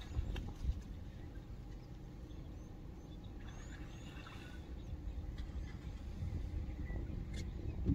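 Steady low rumble with a few faint bird chirps and several soft clicks.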